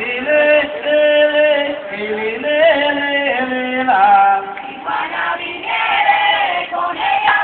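Mixed chorus of men's and women's voices singing unaccompanied in long held notes that step from pitch to pitch, in the Colombian tambora folk style, with no drums playing.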